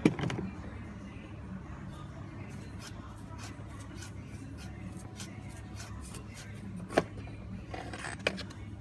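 Plastic oil filter housing cap on a BMW X5 diesel being unscrewed by hand and lifted out: faint scattered clicks and rubbing over a steady low hum, with a bump right at the start and a sharp click about seven seconds in.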